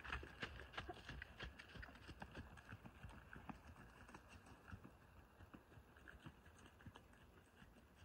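Hoofbeats of a ridden horse on soft dirt, a quick irregular patter that is loudest about the start and fades as the horse moves away.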